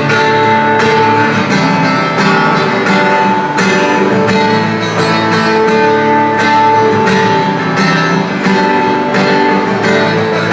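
Acoustic guitar strummed in a steady rhythm in an instrumental break between verses of a folk song.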